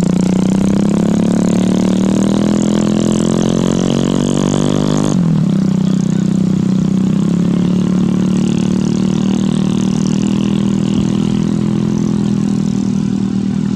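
An engine running loud and close. Its pitch creeps up over the first five seconds, drops abruptly, and then holds steady.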